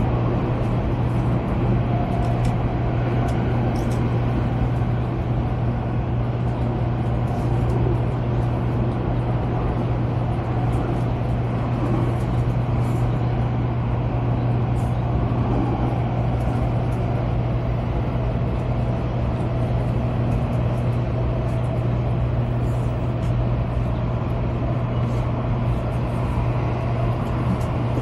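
Interior running noise of a Taiwan High Speed Rail train carriage: a steady low hum under an even rumble, with faint scattered ticks.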